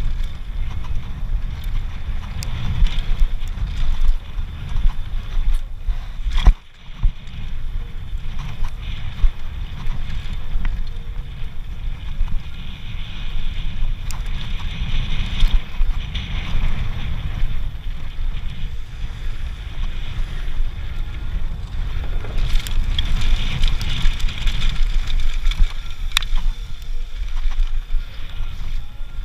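Mountain bike descending a dusty dirt trail at speed: wind buffeting the rider's action-camera microphone in a steady rumble, with tyres running over loose dirt and scattered knocks and rattles from the bike, and one brief dip in level about six seconds in.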